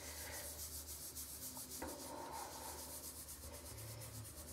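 Soft cloth scrubbing dry baking soda and toothpaste on a porcelain bathtub: a faint, steady rubbing hiss, with one light tick about two seconds in.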